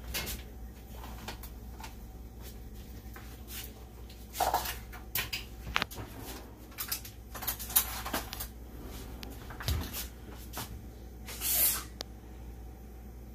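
Kitchen cupboard door and its contents being handled, then scattered clinks and knocks of utensils taken from a dish rack, over a low steady hum.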